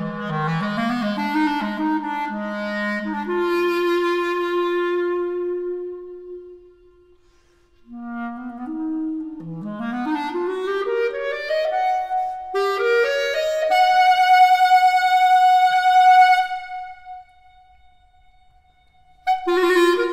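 Solo clarinet playing a contemporary concert piece in separate phrases: wavering low notes that climb to a held note and fade, a short pause, then a quick rising run up to a long held high note that stops suddenly, and a new phrase starting near the end.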